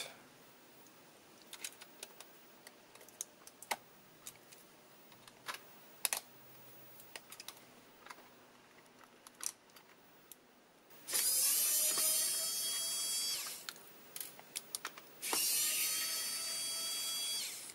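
Small electric precision screwdriver running twice, each time for about two seconds, backing screws out of a keyboard's metal frame. Before that come light, scattered clicks and taps of small parts being handled.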